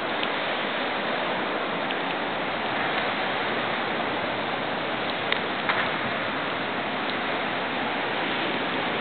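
Steady heavy rain mixed with the rush of floodwater from an overflowing creek, an even hiss throughout. Two small taps sound a little past halfway.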